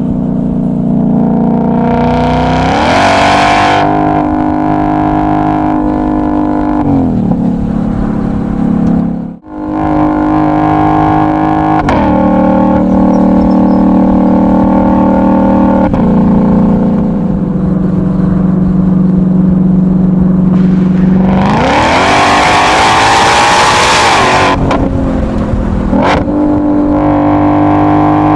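Ford Mustang GTD's supercharged 5.2-litre V8 running and being revved: a steady engine note that steps to new pitches several times, a short rev a couple of seconds in, a momentary cut-out about nine seconds in, and a longer, louder rev rising in pitch near the end before settling back.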